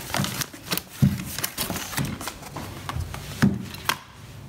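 Plastic carrier bag rustling and small cardboard boxes being handled and set down on the floor, giving irregular clicks and knocks; the loudest knocks come about a second in and again about three and a half seconds in.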